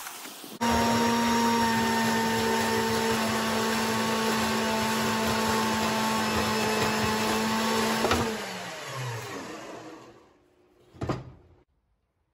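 General International metal-cutting bandsaw running steadily with a constant hum while cutting through a cast aluminium sprue. About eight seconds in it is switched off and winds down, its pitch falling over a couple of seconds; a single brief knock follows near the end.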